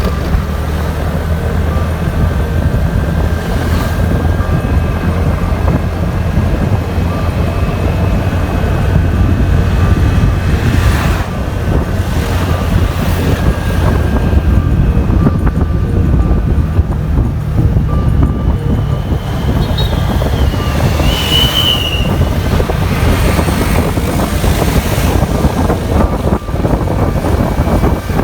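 A moving vehicle's steady road rumble, with wind buffeting the microphone. A short high chirp rises above it about 21 seconds in.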